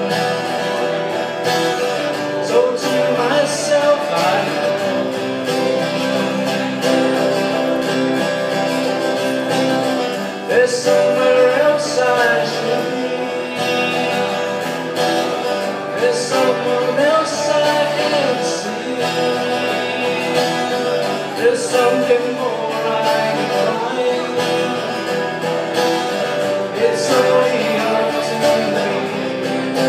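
Two acoustic guitars playing a song together, strummed and picked, with a man singing over them.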